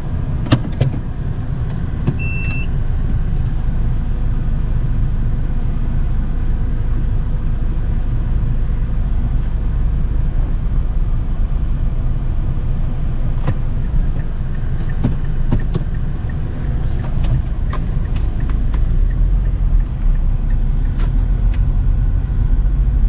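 Car driving: a steady low road rumble with scattered light clicks and a short high beep about two seconds in.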